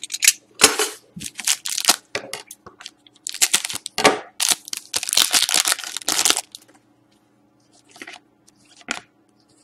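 Foil wrapper of a Panini Select hockey card pack crinkling and tearing as it is cut open, in a run of rustling bursts that stops about six and a half seconds in. A couple of faint short clicks follow near the end as the cards are handled.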